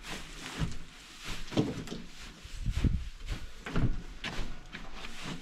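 Work boots tramping through loose hay on a wooden shed floor: rustling and crunching of dry hay with soft thuds of footsteps, roughly two a second, as the hay is spread for calf bedding.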